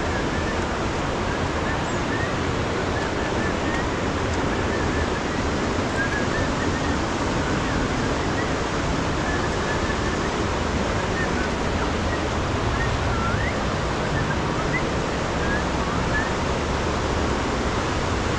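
Steady rush of a river in flood, a dense even roar of water with faint short high chirps scattered over it.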